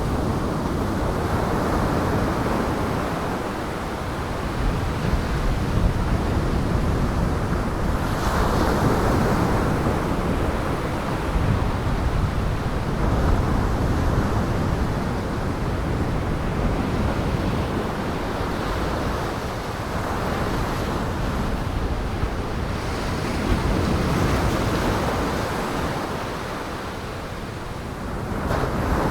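Heavy surf driven by storm winds, waves breaking and washing in swells that rise and fall every several seconds, with wind noise underneath.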